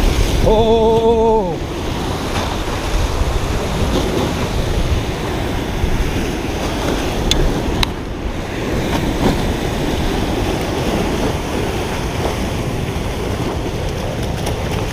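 Fast, high river water rushing steadily through the open gates below a dam, with wind buffeting the microphone. A couple of faint clicks come a little past the middle as a hand handles the body-worn camera.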